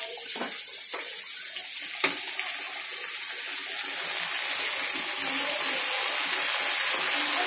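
Garlic and ginger sizzling in hot mustard oil in an aluminium kadai, a steady frying hiss that grows slowly louder as it is stirred with a wooden spoon. A single knock about two seconds in.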